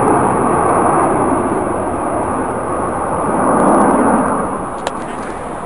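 Roar of a formation of Aermacchi MB-339 jet trainers climbing overhead, swelling about three and a half seconds in and then easing a little. A single sharp click near the end.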